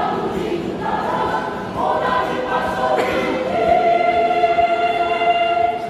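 Choir singing unaccompanied, rising into a long held chord over the last two seconds or so that cuts off near the end.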